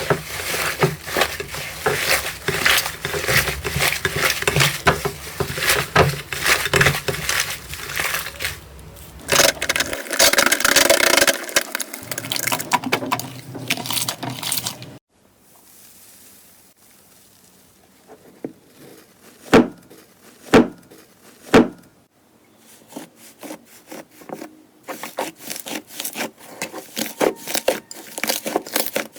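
Slime being squeezed and worked close to the microphone: dense crackling and clicking that stops abruptly halfway through, three sharp knocks about a second apart, then quieter crackling again near the end.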